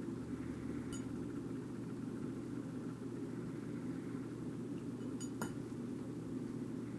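A steady low mechanical hum, with a few faint clicks and crunches from a cat eating food off a plate; the sharpest click comes about five seconds in.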